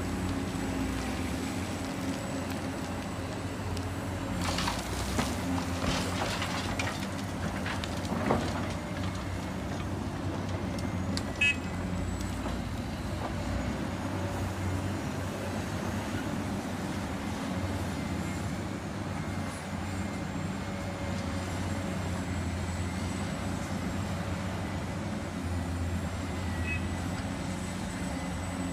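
Heavy diesel engine of a Caterpillar 365C hydraulic excavator running steadily while digging. Rock and earth clatter a few times between about four and eight seconds in, and a short sharp clank comes near twelve seconds.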